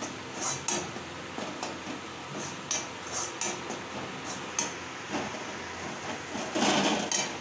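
A metal spoon scrapes and clinks against a metal kadai as an onion-tomato masala is stirred, with scattered short scrapes throughout. A louder run of scraping comes near the end.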